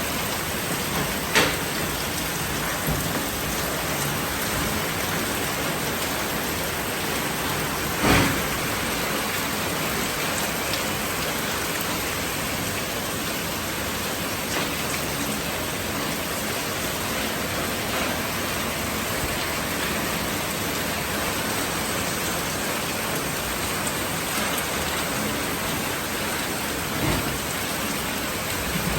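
Steady hiss of rain, with a few short knocks: one about a second and a half in, a louder one near eight seconds, and one near the end.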